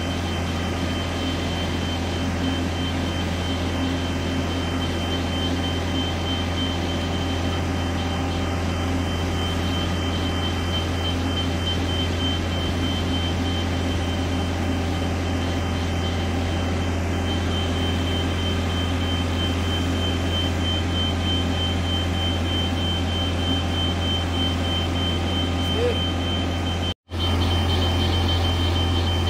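Self-propelled modular transporter's diesel power pack running steadily, a constant low drone with a thin steady high whine over it. The sound breaks off for an instant near the end.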